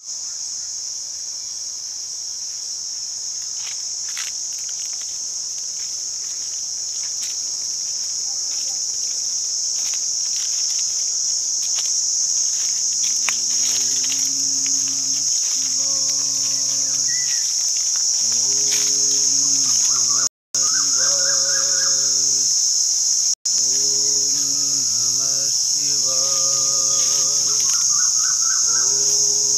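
Insects buzzing steadily at a high pitch. From about halfway through, a deep held tone joins, with pitches stacked above it that move in steps and bends.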